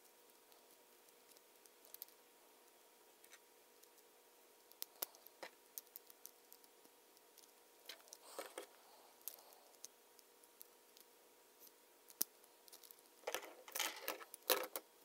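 Faint, scattered clicks and light clatter of plastic Lego pieces being handled and snapped together. There is a brief rustle about eight seconds in and a denser burst of rattling clicks near the end.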